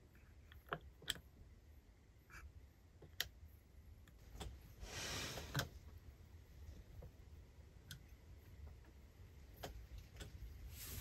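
Scattered sharp, faint clicks from buttons being pressed on a portable power station and handled, with a soft rustle about five seconds in.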